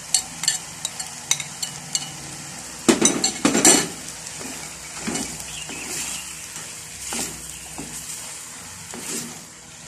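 Cuttlefish, green chillies and tomato slices sizzling as they fry in a pot, while a spoon stirs and scrapes through them with sharp clicks against the pot. The loudest scraping comes about three seconds in.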